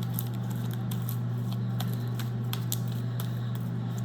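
Freshly activated homemade slime being kneaded and stretched by hand, giving off irregular small sticky clicks and snaps as it tears slightly. A steady low hum runs underneath.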